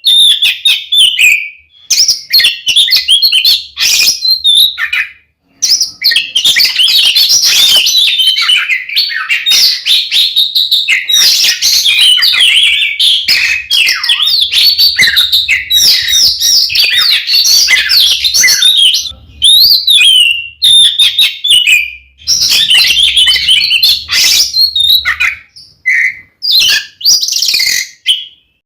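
Oriental magpie-robin (kacer) singing loudly: a fast, unbroken stream of varied whistles and chattering notes, with a few short breaks. This is the bird's combative, fighting-mood song.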